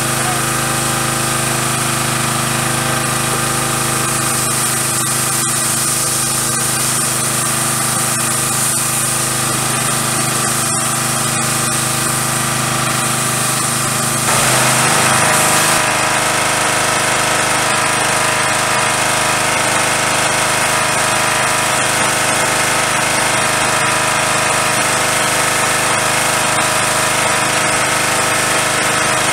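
Pressure washer running steadily, a motor drone under the hiss of its spray as the wand washes down a truck's body; about halfway through, the spray hiss gets louder.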